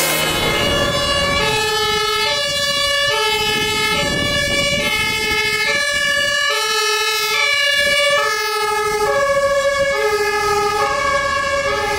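German two-tone emergency siren on an ambulance, sounding its alternating high–low horn pattern, each note held about two-thirds of a second.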